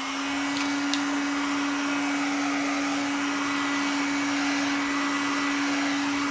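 Hot-air heat gun blowing steadily, its motor at full speed with a constant hum under the rush of air, warming the phone's back glass to soften the adhesive tape.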